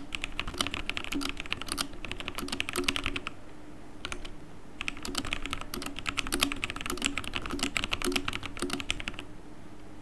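Fast typing on a computer keyboard that is very quiet, heard as a rapid run of key clicks. It pauses for about a second and a half near the middle, then another run of clicks stops about a second before the end.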